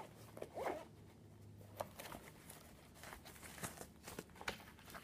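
Rustling of a soft fabric carrying case and light clicks and taps of plastic camera accessories being handled and set on a table.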